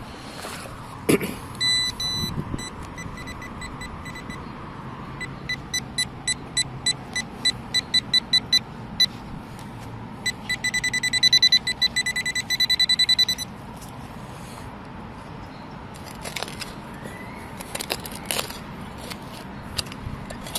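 Metal-detecting pinpointer probe beeping in the dirt of a dig hole. The beeps speed up from sparse to about three a second, then become a rapid near-continuous pulsing as the tip closes on a buried metal target. Near the end come a few faint scrapes of the digging knife in the soil.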